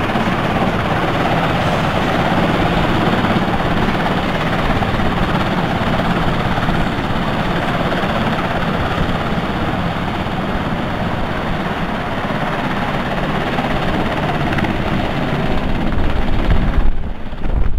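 Sea King helicopter running on the ground with its rotors turning, a steady dense din of twin turboshaft engines and rotor blades. Near the end a heavy low rumble swells up.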